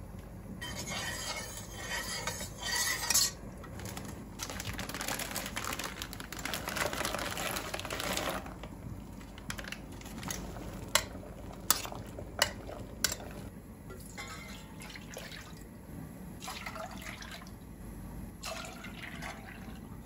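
Water poured from a glass into an empty stainless-steel saucepan, splashing on the metal bottom, for a sugar syrup. A few seconds later come four sharp clinks, the loudest sounds, and then softer handling noises.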